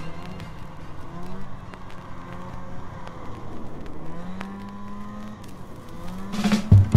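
Arctic Cat Jag snowmobile's two-stroke engine running under way, its pitch rising and falling with the throttle. Music comes in loudly near the end.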